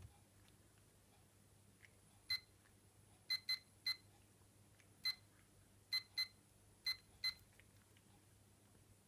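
About nine short, sharp, high-pitched ticks at irregular intervals, some in quick pairs, starting about two seconds in, over a faint steady low hum.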